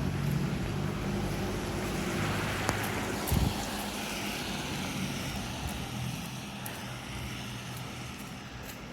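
A motor vehicle passing on a snowy street: a low engine hum with tyre hiss that swells and then fades away. A short thump about three and a half seconds in.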